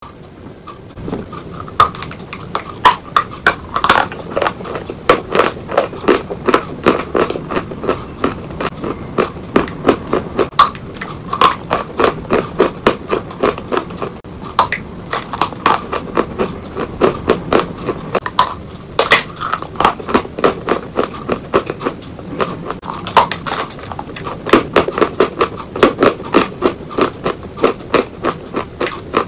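Close-up crunching of a person biting and chewing a hard lump of Oktavia chalk: rapid runs of sharp, dry crunches with short pauses, starting about a second in.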